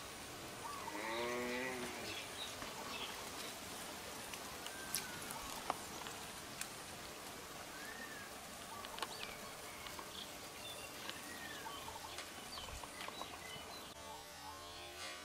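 Pond-side outdoor ambience: a brief wavering animal call about a second in, then scattered short bird chirps and a few light clicks.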